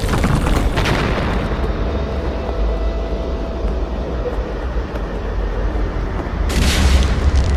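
A low rumbling sound effect like an explosion or eruption, with a sharper noisy burst at the start and another short one near the end.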